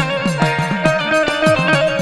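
Instrumental folk music: a plucked string instrument holding steady notes over a quick drum beat of about four or five strokes a second, each stroke bending in pitch.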